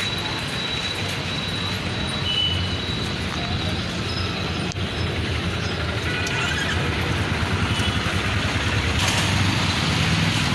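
Busy city street ambience: a steady wash of road traffic and motorbikes, with faint passing voices.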